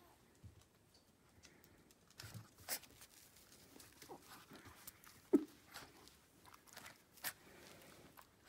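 Faint scattered clicks and taps of a small Affenpinscher puppy moving about on a tile floor, with one louder short, sharp sound about five seconds in.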